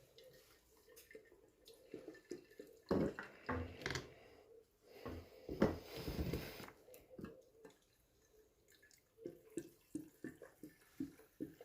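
Scattered clicks and knocks of hands handling the mini chainsaw during its inspection, with a quick run of small clicks near the end.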